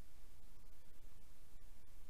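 Steady, muffled low rumble of river water heard through an underwater camera's housing, with no distinct events.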